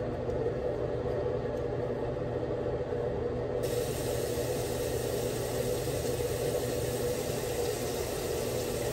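Water running steadily from a bathroom tap, a continuous rushing hiss.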